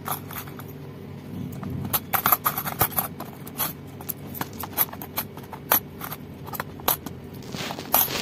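Coins clinking and dropping into a plastic toy-house coin bank, mixed with taps and knocks of hands handling the plastic toy. A run of sharp, irregular clicks, several a second at times.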